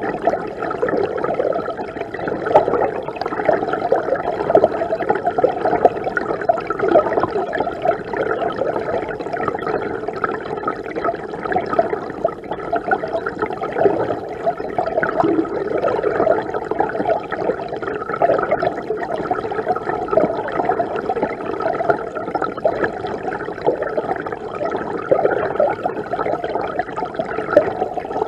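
Rushing, bubbling river water heard from inside the stream, a steady muffled churning with fine rapid bubbling and little hiss.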